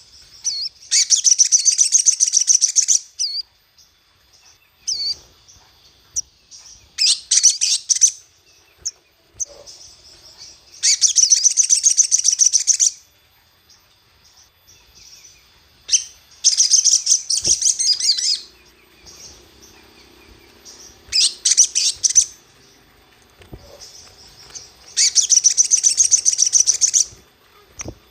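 Sogok ontong (sogon) sunbird singing in repeated bursts of rapid, very high, twittering trills, six bursts each lasting about one to two seconds, separated by short pauses. This is a lure song, meant to provoke and stir up other sogon.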